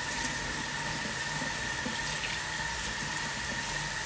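Kitchen tap running steadily as a knife and hands are rinsed under it, with a faint steady whine under the rush of water.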